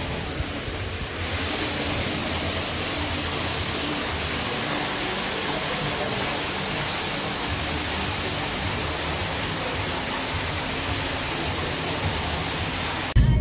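Water splashing down an indoor artificial rock waterfall fountain: a steady rushing hiss that grows fuller about a second in and cuts off suddenly near the end.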